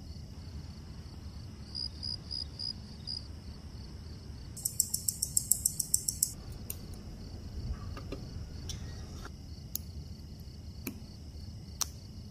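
An Omega Aqua Terra co-axial watch movement ticking at its 25,200 beats an hour, about seven ticks a second, as picked up by a timegrapher's microphone. The ticks are loud and sharp for about a second and a half midway, fainter elsewhere, and a few sharp clicks follow from handling the watch. The timegrapher reads −2 s/day, 298° amplitude and 0.0 ms beat error: the movement is running in good order.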